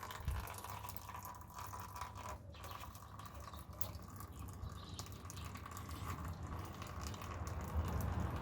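Old gear oil draining from a GAZelle van's rear axle, a faint trickle and drip of liquid.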